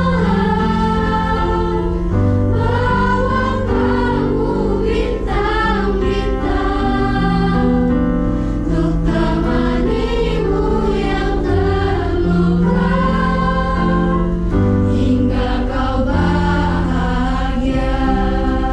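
School choir of teenage voices singing a song in harmony, with electric keyboard accompaniment holding low sustained chords beneath.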